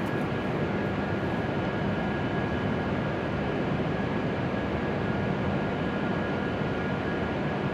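Steady whirring hum of a stationary E7 series Shinkansen's onboard equipment running while it stands at the platform, with a couple of faint high steady tones over it.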